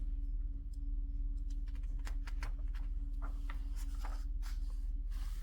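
Faint rustling and light taps of a picture book's paper pages being handled and turned, over a steady low hum.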